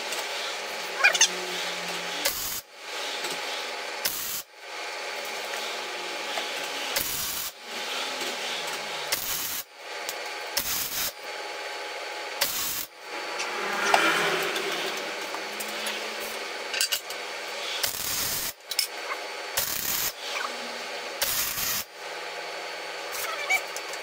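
MIG welder welding a steel box-section frame: a steady crackle in about ten runs of one to several seconds each, stopping sharply between runs.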